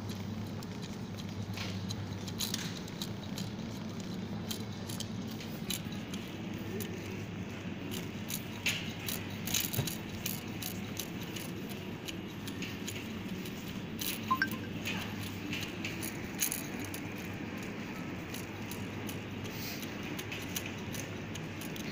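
Empty wire shopping trolley rattling and clinking as it is pushed along a hard floor, with scattered clicks and a few louder clinks around the middle. A steady low hum lies beneath it.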